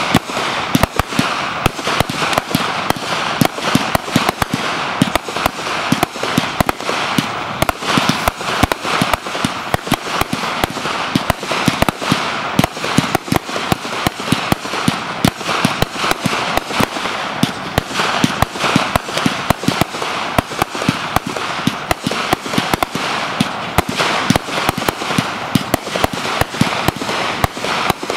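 T Sky Fireworks 'Guns for Hire' 80-shot firework cake firing: a fast, unbroken run of bangs, several a second, over a steady hiss.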